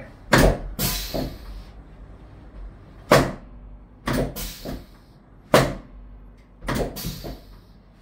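Thompson drop table's pelvic section snapping down under a chiropractor's quick thrusts on the lower back: a series of loud, sharp clacks about a second apart, several in quick pairs.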